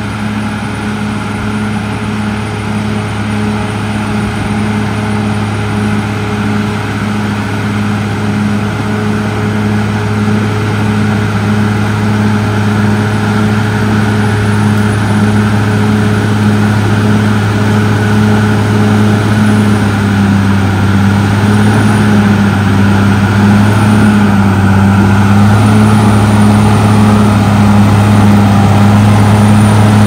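Caterpillar D6R XL bulldozer's diesel engine running steadily as the dozer pushes a load of soil along a dirt road, growing gradually louder as it approaches. The engine note dips twice in pitch about two-thirds of the way through.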